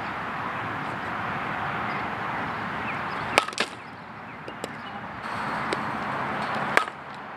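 Softball bat striking a softball twice, about three and a half seconds apart, each a sharp crack with a short ring, over a steady hiss.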